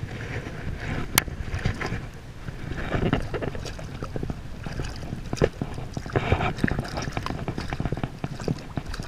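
Water splashing and sloshing as a hooked fluke is drawn to hand at the surface, with wind buffeting the microphone. A single sharp click about a second in.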